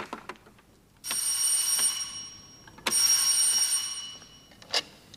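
An electric bell rings twice, each ring about a second long and fading away at the end.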